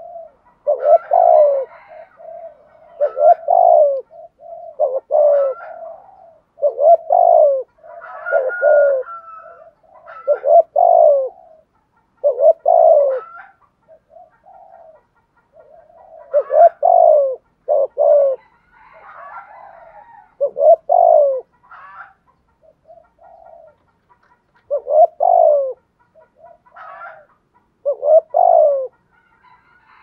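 Caged decoy spotted dove cooing: short phrases of low coos that fall in pitch, repeated about every two seconds, with a couple of brief pauses.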